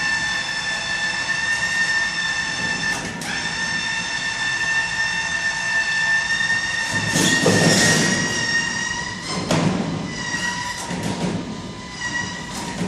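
A steady, high-pitched mechanical whine with several overtones from the machinery hauling a 250 kg air-conditioner outdoor unit up a stairwell. Knocks and scraping come through in the second half, loudest about seven to eight seconds in.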